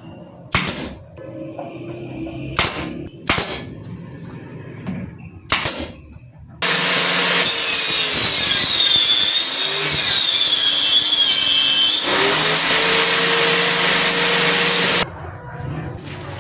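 Four sharp knocks on wood, then a woodworking power tool runs loudly for about eight seconds with a whine that shifts in pitch, and cuts off suddenly.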